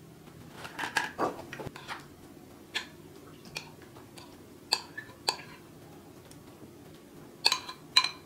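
A utensil scraping and knocking against a metal mixing bowl as potato salad is scooped out into a serving bowl. It makes a scattered series of short clicks and knocks, with two louder, ringing taps on the metal bowl near the end.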